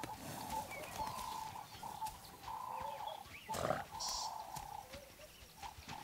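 Cape buffalo herd, with one short low grunt about three and a half seconds in over a thin, broken whistle-like tone in the background.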